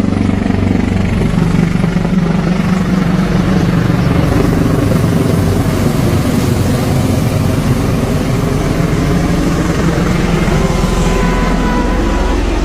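Military helicopter rotor beating steadily, loud and continuous with a fast even chop.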